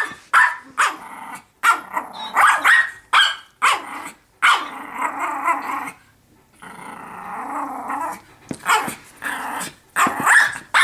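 Small pug-type dog barking and growling aggressively: sharp barks in the first few seconds, two long low growls through the middle, then a quick string of barks in the last two seconds.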